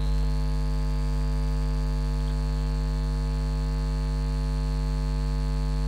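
Steady electrical mains hum: a low buzz with many evenly spaced overtones, picked up in the recording. Above it a thin, high, steady whine, which slides up at the very start and then holds.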